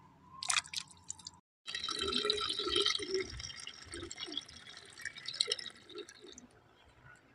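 Water splashing and dripping, loudest a couple of seconds in and thinning out afterwards. There is a short break in the sound about a second and a half in.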